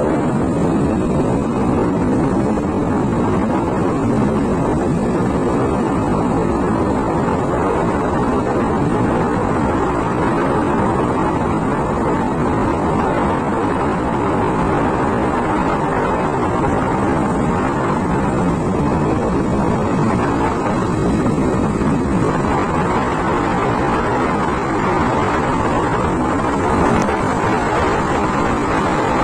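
Steady noise of a moving motor scooter or motorbike, its engine running under the rush of wind and road noise, with no break or change.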